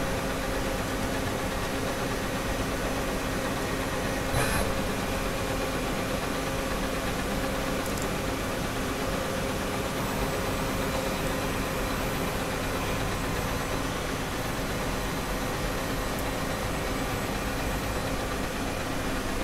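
Miyano BND-34S CNC turning center running: a steady mechanical hum with a few faint steady tones, and a brief louder burst about four seconds in.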